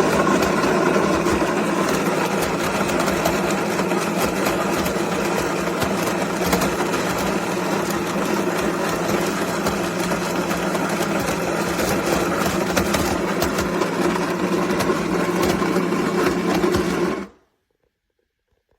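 Built-in coffee grinder of a Cuisinart DGB-30 grind-and-brew coffee maker running steadily, grinding beans with an even motor whir, then stopping suddenly near the end.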